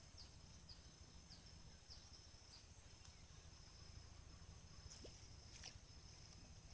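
Near silence: faint outdoor ambience with a low steady hum and a few faint, short high chirps in the first few seconds.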